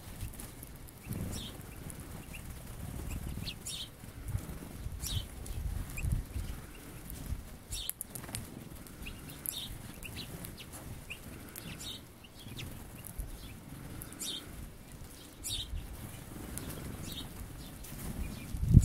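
Bullfinches' wings fluttering as the birds land on and leave a hand holding sunflower seeds, in soft low bursts. Small birds give short, high chirps a dozen or so times throughout.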